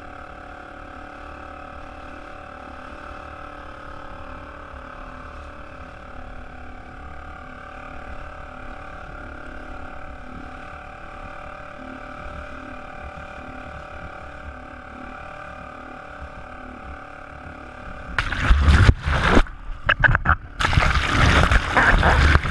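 A steady background of several held, even tones. About eighteen seconds in, a loud rush of water as the action camera is dunked in and out of the sea and then held under.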